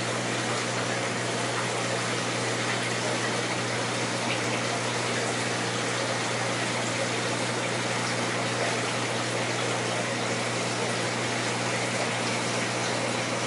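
Aquarium filter or pump running steadily: a constant low hum under an even hiss of moving water.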